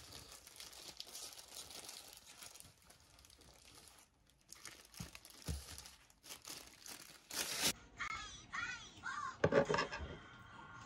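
Disposable plastic food-prep glove crinkling and rustling as the gimbap is handled, with a couple of soft knocks. After a cut, a quick run of short high chirps, loudest near the end.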